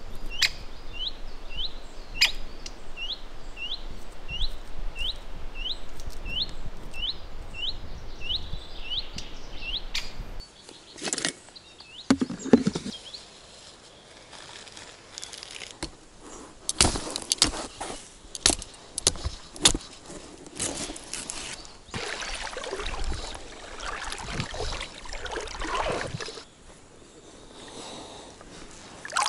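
A bird repeats one short, sharp, rising call about twice a second over the first ten seconds. Then the sound changes abruptly to close, irregular clicks, knocks and rustling from fishing tackle being handled.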